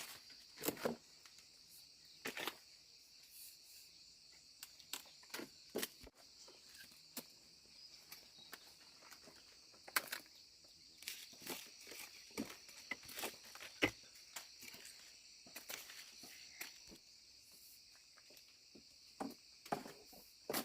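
Faint outdoor ambience: insects chirring steadily at a high pitch, with scattered light clicks and knocks throughout.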